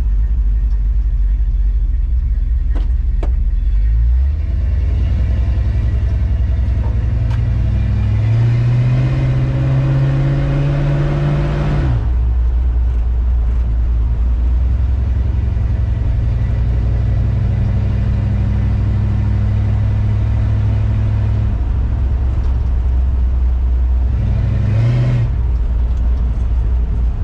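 1970 Dodge D100's 383 big-block V8, on a new Holley Street Dominator intake and Holley four-barrel carburetor, pulling the truck along. Its pitch climbs under acceleration from about eight seconds in and drops sharply at about twelve seconds as the automatic transmission upshifts. It then runs steadily, with a brief rise and fall near the end.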